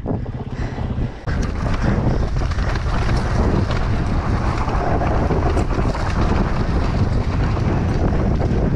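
Wind buffeting the microphone at riding speed over the rumble and rattle of riding down a loose dirt enduro trail, stepping up louder about a second in.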